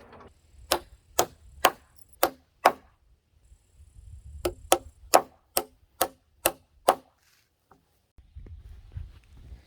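Hammer blows on wood: five sharp strikes about two a second, a short pause, then about seven quicker strikes.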